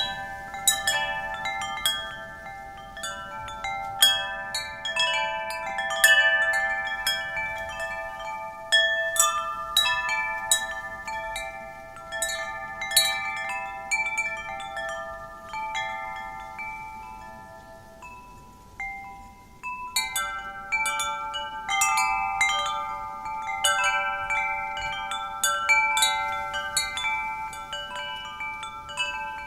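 Wind chimes ringing, struck irregularly by the wind, with overlapping clear tones that ring on for seconds. The strikes thin out a little past halfway, then pick up again in dense clusters.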